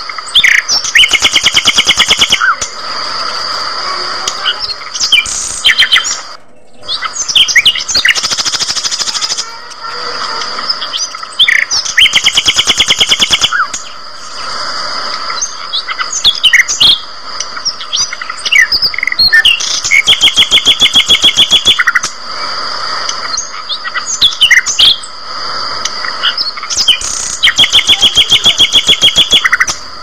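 A flock of budgerigars chirping and chattering, with loud, very rapid trills of a second or two breaking out about five times over a steady high ringing tone.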